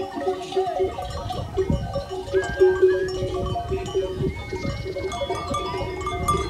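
A livestock herd at a watering pond: many animal neck bells clanking and ringing at different pitches, with an occasional animal call.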